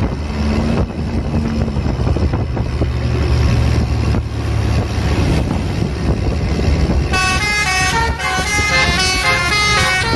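A tour bus's engine runs with a low rumble. About seven seconds in, a Basuri telolet multi-tone horn starts playing a quick tune, its notes changing several times a second.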